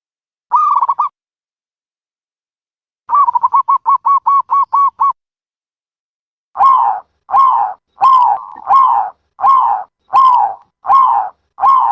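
Dove calls played as a trapping lure: one call about half a second in, then a quick run of about a dozen short notes near three seconds in, then eight longer calls at a steady pace of a little over one a second.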